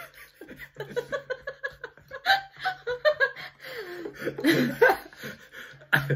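People laughing: a quick run of chuckles about a second in, followed by more laughter mixed with talk.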